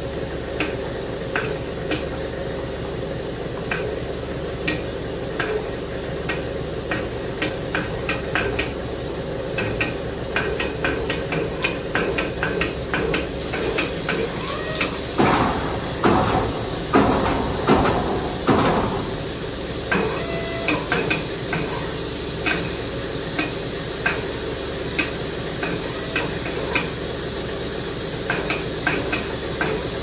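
A hand-held impact tool chipping along the edge of a Takine granite slab: irregular sharp ticks of stone over a steady hum, with a run of heavier strikes about halfway through.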